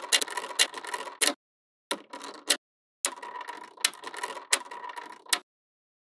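Small magnetic balls clicking and rattling against each other as they are handled and snapped into place. The sound comes in three bursts, each with a few sharp clacks, and there are gaps of dead silence between the bursts.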